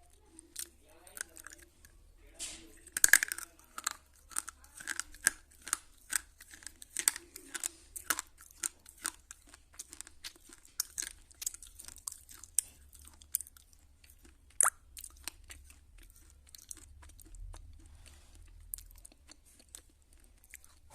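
Slate pencil being chewed in the mouth: sharp, dry crunches at about two a second, loudest about three seconds in, growing sparse near the end.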